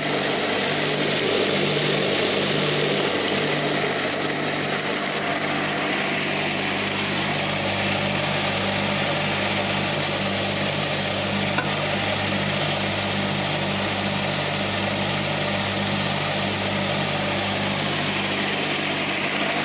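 Electric grain crusher running steadily as it grinds whole grain: a continuous motor hum under a dense, even hiss of grain being milled.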